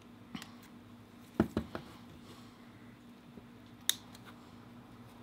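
A few sharp plastic snips and clicks from hobby nippers cutting small Gunpla pieces off the plastic runner: one click, a quick group of three a second later, and a sharper single snip near the end.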